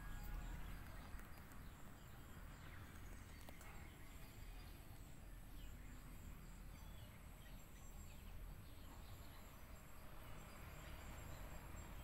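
Faint open-air ambience: a low steady rumble of wind on the microphone, a thin high insect drone, and a few faint scattered chirps.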